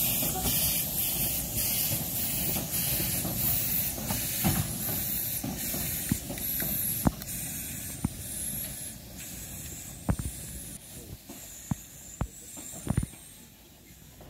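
Narrow-gauge steam train passing: a steady hiss of steam from the 1916 Decauville locomotive, with sharp clicks from the carriages' wheels on the track. The sound fades as the train moves away.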